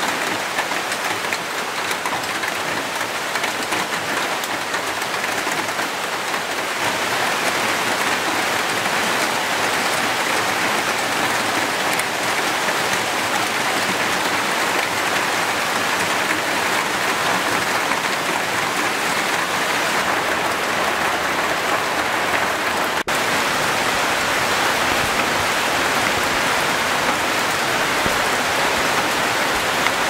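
Tropical rain falling steadily on rainforest leaves: a continuous, even hiss of drops, a little fuller after the first several seconds, with a split-second gap about two-thirds of the way through.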